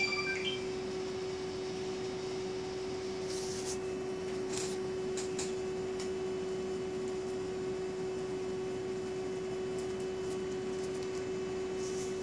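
Steady electric fan hum, one constant tone over a soft whoosh of air, with a few faint short hisses and clicks from about three seconds in.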